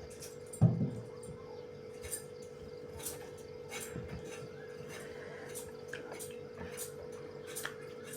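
Kitchen knife cutting through a carrot on a board: sharp clicks about once a second. There is a dull thump under a second in, and a steady hum underneath.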